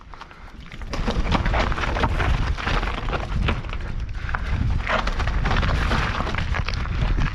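Mountain bike tyres rolling and clattering over loose rock and stone on a rough descent, with many quick knocks and rattles from the bike and a steady rumble of wind on the microphone; it gets louder about a second in.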